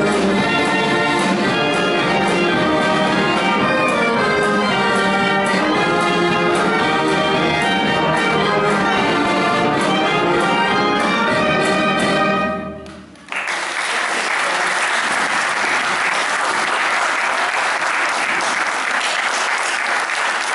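A youth brass band with tubas, trumpets and accordions plays a tune through to its last note about twelve seconds in. After a brief pause the audience breaks into steady applause.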